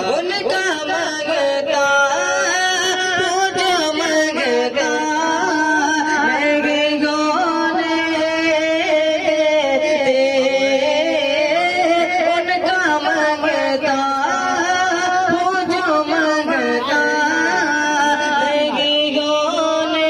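A naat, an Islamic devotional poem, sung in a flowing, ornamented vocal line that carries on without a break.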